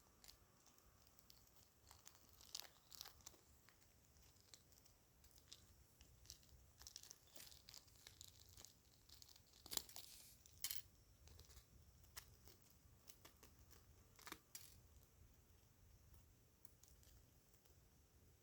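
Eggshell cracking and crumbling: an irregular run of small, sharp, high cracks and crinkles, with the loudest snaps about ten seconds in.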